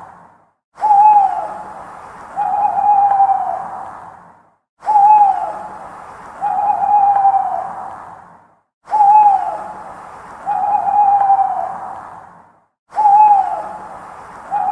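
Owl hooting in pairs, four pairs about every four seconds: a short hoot that drops in pitch, then a longer, steadier hoot that falls away at its end. Each pair is cut off by a moment of complete silence before the next.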